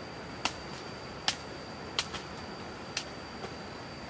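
A series of light, sharp taps, about one a second, over a steady background hiss and a faint high-pitched tone.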